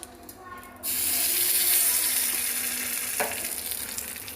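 Hot tempering oil (tadka) hitting coconut chutney, sizzling loudly from a sudden start about a second in and slowly dying away. There is a short click about three seconds in.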